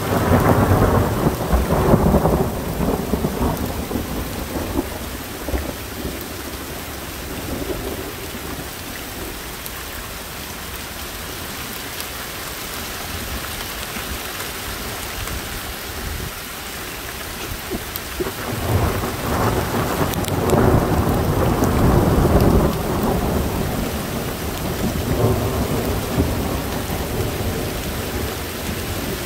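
Two long rolls of thunder over steady rain: the first breaks out right at the start and rumbles away over several seconds, the second builds about eighteen seconds in and rumbles on for about five seconds.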